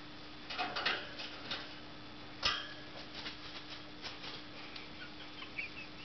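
Rainbow lory scuffling against a stuffed toy on its cage floor: scratchy rustles and clicks about a second in, a single sharp click near the middle, and a few faint short peeps near the end.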